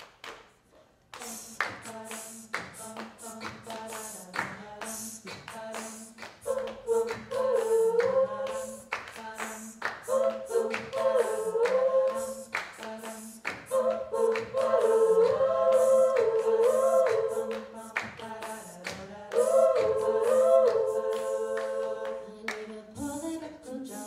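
All-female a cappella group singing: about a second in a held low note and a steady percussive beat begin, and a few seconds later several voices come in above them in harmony.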